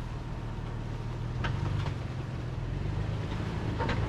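Off-road vehicle engine running slowly in four-wheel-drive low through a mud hole: a steady low rumble that slowly grows louder, with two faint knocks.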